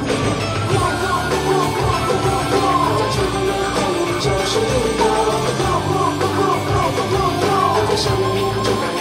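Loud rock music with a singing voice over a steady bass line.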